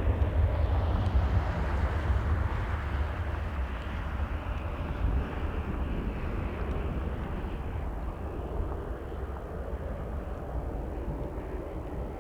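Airplane engine noise fading steadily as the aircraft moves away, over a constant low rumble.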